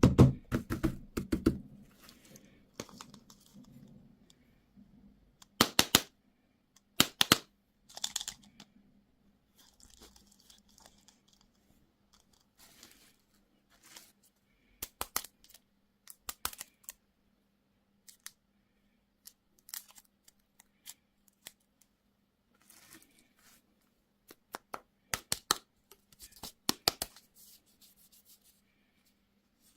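Crinkly candy wrappers and packaging being torn and unwrapped by hand, in several short bursts of sharp crackling separated by quiet pauses.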